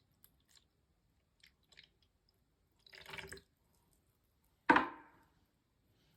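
Quiet handling noises: a few faint clicks, a short rustle about three seconds in, then a sharper knock near the end of the fifth second that dies away within half a second.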